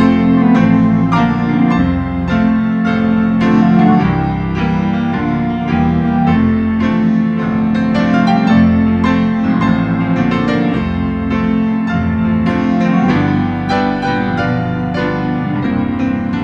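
Organ and piano playing Christmas music together: the organ holds a low sustained note beneath a steady run of piano notes.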